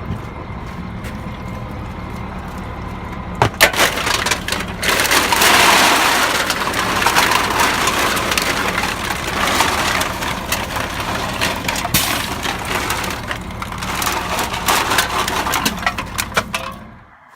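A mass of loose aluminum beer cans crashing and clattering as they are emptied and shifted out of a dumpster. The clatter starts a few seconds in and stops suddenly near the end. A vehicle engine idles steadily underneath.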